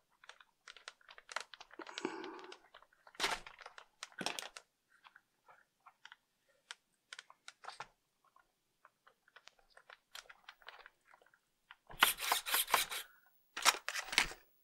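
Close-up handling of a foam RC model airplane and its small plastic parts: scattered light clicks, taps and rustles. Near the end comes a denser run of crackling scrapes.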